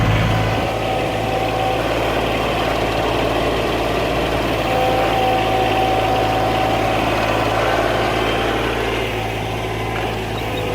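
A heavy machine's engine running steadily, with a low hum and a higher whine that comes and goes.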